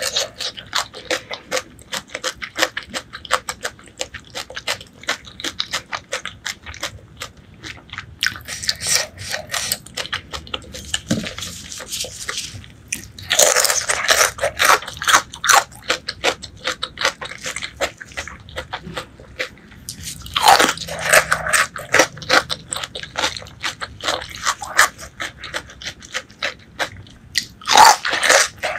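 Close-miked chewing and biting of braised pork leg: a steady run of quick mouth clicks, with louder bites a few times.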